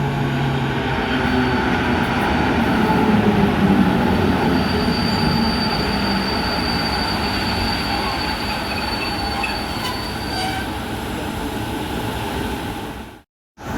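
Polish EP09 electric locomotive hauling a passenger train, running with steady loud rail and wheel noise. A thin high wheel squeal is held over most of it. The sound cuts out for a moment near the end.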